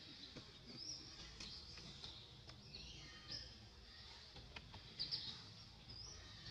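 Faint, scattered short high bird chirps over a quiet background hiss, with a few soft clicks.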